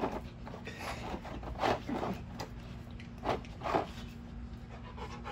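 Dog licking and nosing out an empty plastic food bowl: a few short, separate licking and scraping sounds about half a second to a second apart.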